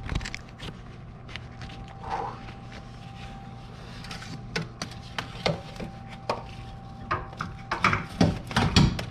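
Scattered metallic clinks and knocks as a CV axle shaft is worked and fed back into place, the knocks coming closer together near the end, over a faint steady hum.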